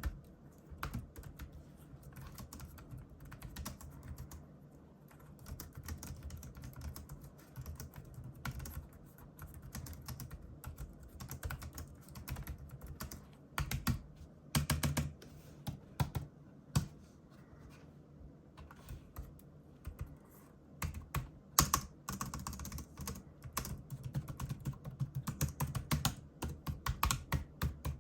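Typing on a Logitech K380 slim Bluetooth keyboard with round keycaps: irregular runs of soft key clicks, with short pauses and a few louder flurries.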